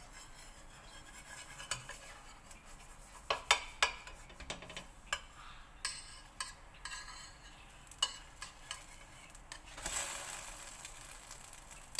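A metal turner scraping and tapping against a stainless steel frying pan as pancake batter is worked, over a faint sizzle of frying. A louder sizzle of frying starts about ten seconds in.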